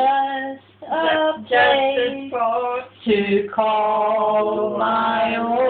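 An elderly woman and man singing a slow song together without accompaniment, in several short phrases and then one long held note near the end.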